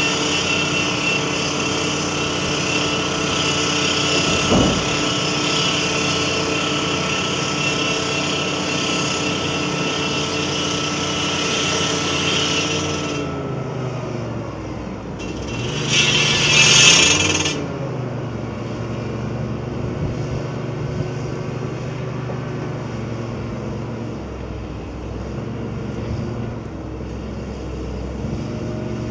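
Heavy diesel engine of earthmoving machinery running steadily at high revs, then winding down in pitch about halfway through. A short loud hiss follows a few seconds later, and the engine then runs on more quietly at lower revs.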